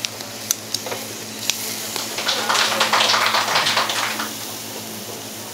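Marinated beef short ribs sizzling on a charcoal tabletop grill grate, the sizzle swelling louder around the middle. A few sharp metal clicks early on come from tongs and scissors against the grate.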